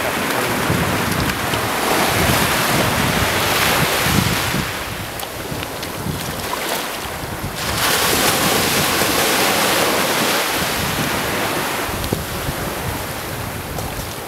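Small waves breaking and washing up a sandy beach, with wind buffeting the microphone. The wash comes in two surges, easing for a few seconds in the middle.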